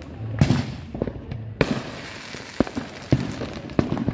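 Consumer fireworks going off: a string of sharp bangs and pops at uneven intervals, each with a short echoing tail.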